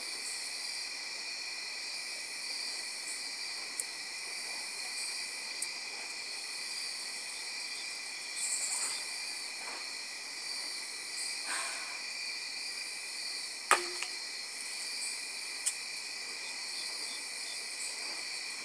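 Night insects chirping in a steady, high-pitched chorus, with a few sharp clicks, the loudest about fourteen seconds in.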